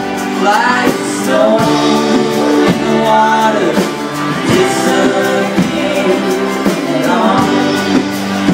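A live band plays an instrumental break. A fiddle carries the melody with sliding, bending notes over strummed acoustic guitar and steady band accompaniment.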